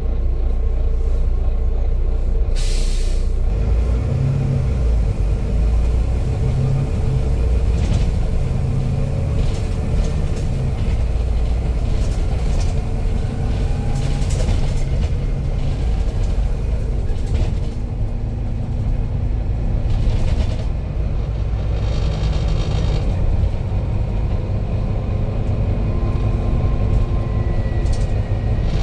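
Volvo B9 double-decker bus driving, heard from the upper deck: steady low engine and road rumble with a faint whine that rises and falls. A short air hiss sounds about three seconds in, with weaker ones later.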